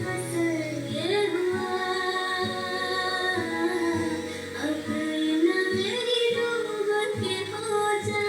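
Music: a high voice singing a melody, holding and bending long notes.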